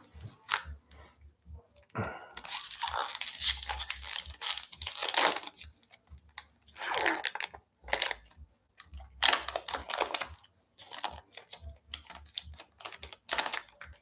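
Foil wrapper of a Magic: The Gathering Ikoria collector booster pack crinkling and tearing open in a series of crackly bursts, the longest starting about two seconds in.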